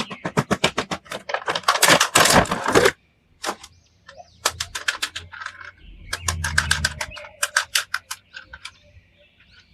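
Rapid runs of sharp clicks, about eight a second, with a harsher noisy burst about two seconds in and a short pause after it.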